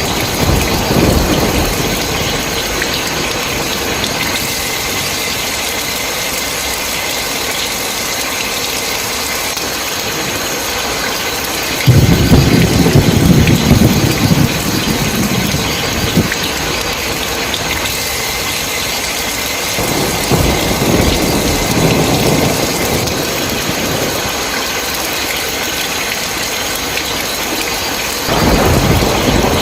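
Heavy rain falling in a steady hiss, with rolling thunder. A loud low rumble comes in suddenly about twelve seconds in and lasts a few seconds, a softer one follows a little later, and another starts near the end.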